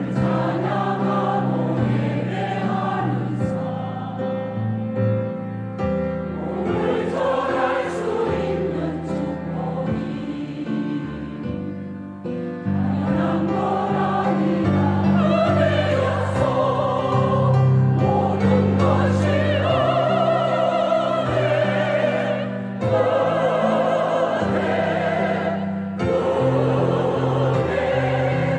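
A church choir sings a hymn in several parts over sustained instrumental accompaniment. It grows louder about halfway through.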